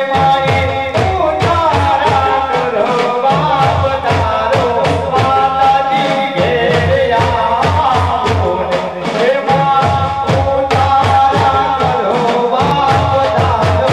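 Garba dance music: singing over a steady, quick drum beat with held melody lines from an accompanying instrument.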